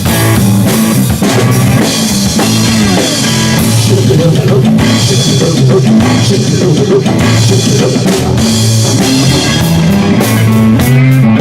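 Live rock band playing an instrumental passage: drum kit and bass driving a steady beat under electric guitar, with no singing.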